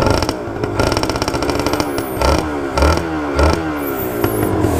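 Two-stroke motorcycle engine being revved in repeated short blips, its pitch climbing on each one, while it is warmed up before riding.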